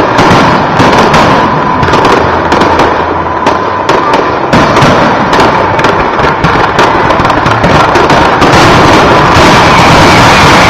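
Fireworks finale barrage: a rapid, overlapping volley of bangs and crackles, very loud throughout, the individual reports merging into one continuous din about eight seconds in.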